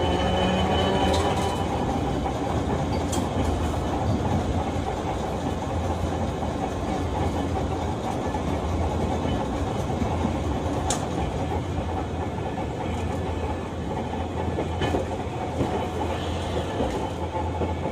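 Hiroshima Electric Railway 1900-series streetcar running. A whine with several pitches fades out about a second in, and then the wheels keep up a steady rumble on the track, with a few sharp clicks and knocks from the rail.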